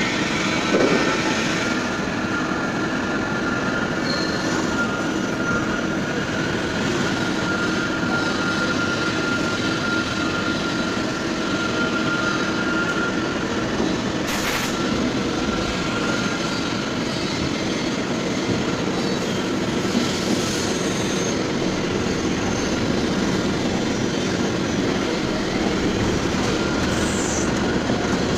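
CNC turning lathe running: a steady mechanical noise with a high, thin whine held over it, and one sharp click about halfway through.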